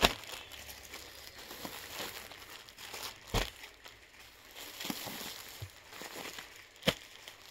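Clear plastic garment bags crinkling and rustling as packed suits are handled and laid down on a counter, with a few sharp taps as packets are set down: one at the start, one about three and a half seconds in and one near the end.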